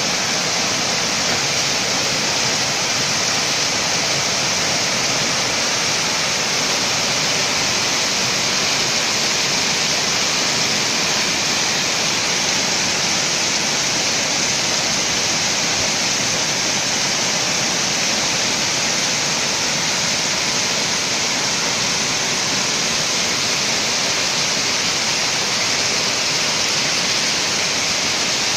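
Heavy rain downpour, a steady dense hiss, with rainwater pouring off the tiled roof and running down outdoor steps.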